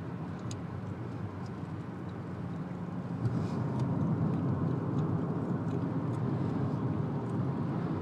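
Road noise inside a moving car's cabin: a steady rumble of tyres and engine that gets louder about three seconds in, with a few faint ticks.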